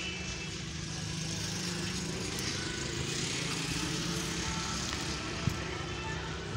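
Steady engine drone from the wheat-straw baling press running, with one sharp click about five and a half seconds in.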